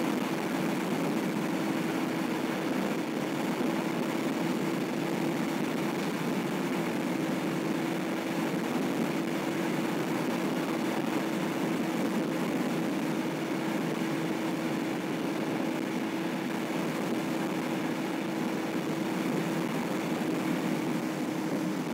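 Steady engine and tyre noise of a car driving along a highway, heard from inside the cabin, with a constant droning hum.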